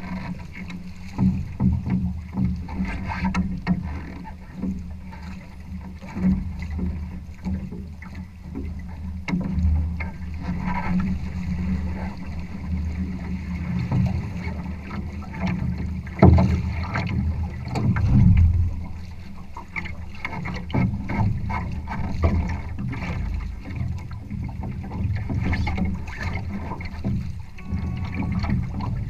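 Water rushing and slapping against a sailing trimaran's hull and float, muffled and low, with irregular knocks and splashes; the loudest knock comes about sixteen seconds in.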